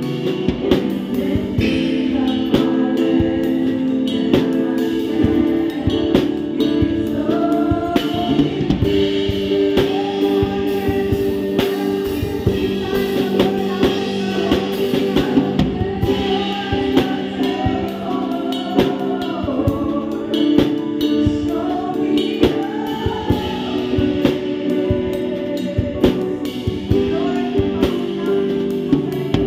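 Live worship band playing a gospel song, with a drum kit heard close up: steady drum hits and cymbals over held keyboard chords and electric guitar, with lead singing and voices singing along.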